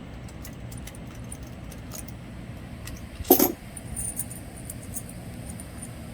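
Loose metal bolts clinking as they are handled, with one louder ringing clink about halfway through.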